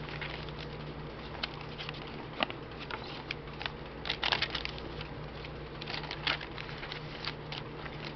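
Coffee-dyed paper pages of a handmade junk journal being turned and handled, with light rustles and soft taps scattered throughout. There is a louder rustle about four seconds in and another around six seconds. A steady low hum runs underneath.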